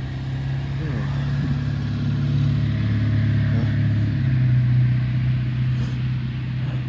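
Motor vehicle engine running close by: a steady low hum with a brief rise in pitch about a second in, growing louder toward the middle and easing off near the end.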